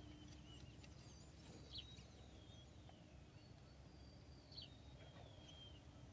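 Near silence with faint, scattered bird chirps, short thin calls that rise and fall in pitch, over a low steady outdoor hum.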